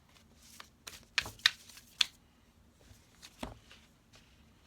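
A deck of oracle cards being shuffled and handled: a few sharp card snaps and flicks, then a softer thump about three and a half seconds in.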